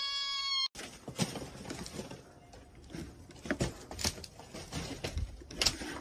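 Long-haired orange kitten ending one long, steady meow that cuts off abruptly under a second in. Then scattered clicks and knocks as a payphone handset is lifted and swung.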